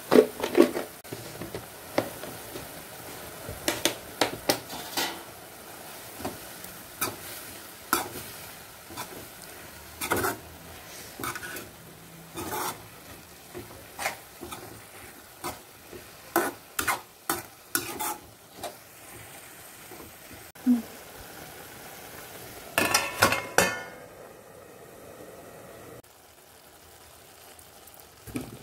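Spatula stirring and scraping chopped fenugreek leaves and onion around a metal kadhai, irregular clicks and scrapes over a steady sizzle of frying. A few seconds before the end, a louder metallic clatter with a brief ring.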